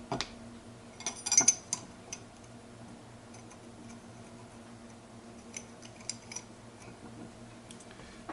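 Steel synchro parts of a Ford 2000E gearbox clinking and clicking against each other as they are fitted onto the shaft by hand: a quick cluster of sharp metallic clicks about a second in, then lighter scattered ticks. A faint steady hum runs underneath.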